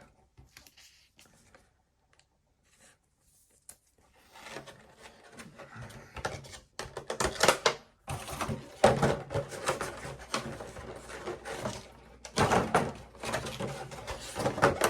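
Cardboard box and plastic packaging being handled and cleared away: rustling with sharp knocks and clatters, starting about four seconds in after near silence.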